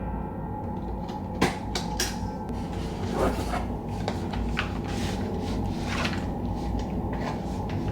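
Scattered light knocks and clicks of household objects being handled indoors, irregularly spaced, over a steady low hum.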